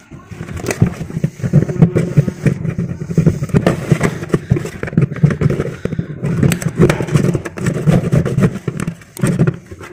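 A metal blade scraping and rubbing the plastic tub surface around a washing machine drain opening in rapid, uneven strokes. This is old residue being cleaned off so the new buffer can seal without leaking.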